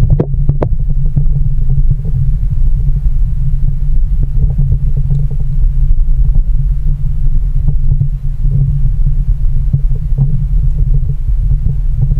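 Muffled underwater sound picked up through a submerged camera housing: a steady low rumble with scattered faint clicks and knocks, a few sharper ones about half a second in.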